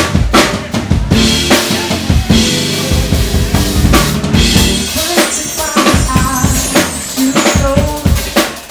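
Live band playing, led by a drum kit with kick, snare and cymbal hits over a bass guitar line; the band kicks in sharply at the start after a brief lull.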